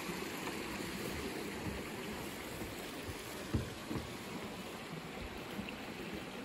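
Steady rushing of hot-spring water in a volcanic geothermal vent field, with two soft thumps a little over halfway through.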